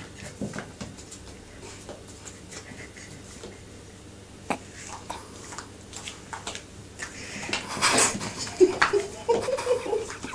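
Kittens leaping up a wallpapered wall, their claws scratching and tapping at it in scattered short scrapes and clicks, with a louder scrabbling burst about eight seconds in. A few short vocal sounds follow near the end.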